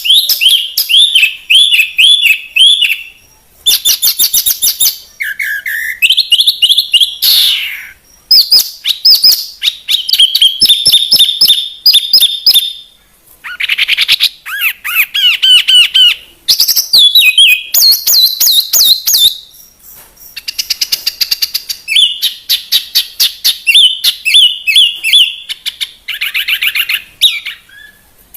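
A songbird singing loud, varied phrases of rapid repeated chirps and trills, in bursts of one to three seconds with short breaks between. This is a 'masteran' birdsong recording of the kind played to train caged songbirds.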